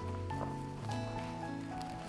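Background music: held notes that move in steps over a low bass line.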